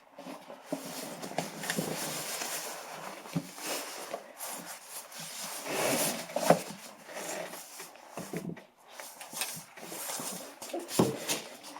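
Rustling and scattered clicks from a child fumbling with a car seat belt and its buckle.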